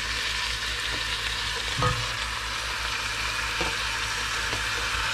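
Raw chicken pieces sizzling as they go into hot oil in a stainless steel pot, a steady frying hiss. A dull thump about two seconds in, and a couple of light knocks later.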